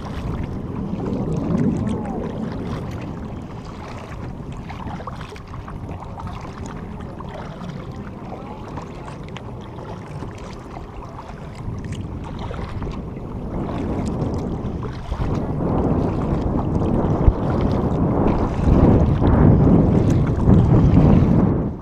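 Wind buffeting the camera microphone over water lapping and splashing around a sit-on-top fishing kayak as it is paddled. It grows louder about two-thirds of the way through.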